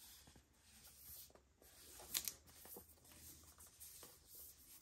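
Faint handling of a cardboard retail box for an Apple TV 4K: hands turning it over and fingers rubbing and tapping the card, with one louder short scrape about two seconds in.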